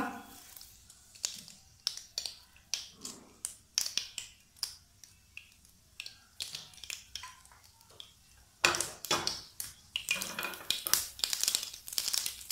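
Mustard seeds popping and crackling in hot mustard oil, with fenugreek seeds added, as the tadka tempering begins: scattered sharp pops that thicken into a dense crackle about nine seconds in.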